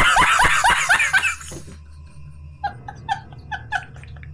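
A man laughing hysterically in rapid, loud "ha-ha" bursts that die away about a second and a half in. From near the middle comes a higher, quieter run of short laughing pulses, about four a second.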